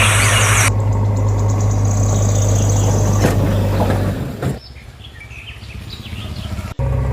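A steady engine hum with a hiss over it that stops within the first second; the engine drops away about four and a half seconds in, leaving birds chirping, and near the end a sudden cut brings in another steady engine hum.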